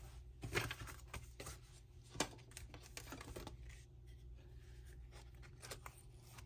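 Cardstock greeting cards being handled: faint paper rustles and light taps as a card is turned over and a pop-up card is opened, loudest about half a second in and again just after two seconds.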